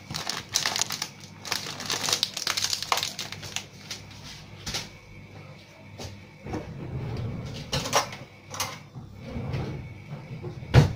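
Crinkly rustling of packaging handled at a kitchen counter for the first few seconds, then scattered clicks and knocks of items being handled and set down, ending in one sharp knock near the end.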